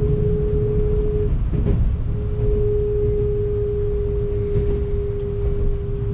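Low rumble inside a running train carriage, with a steady mid-pitched whine that breaks off about a second in and comes back about a second later.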